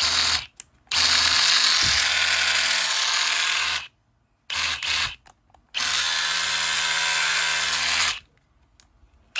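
Hilti TE 4-22 Nuron cordless rotary hammer run without load in trigger bursts: a short blip, a run of about three seconds, two quick blips about five seconds in, then a run of about two seconds that stops just after eight seconds.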